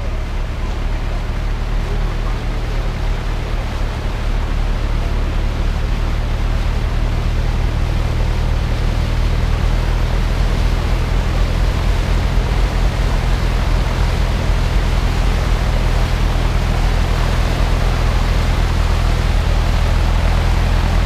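A 4x4's engine running steadily while the vehicle ploughs through deep floodwater, its bow wave rushing and splashing. The water noise swells over the first few seconds.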